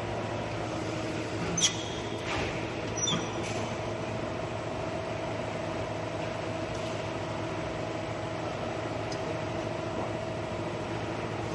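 Sheet-metal bending machinery running with a steady hum, with a few sharp metallic clicks and knocks in the first few seconds.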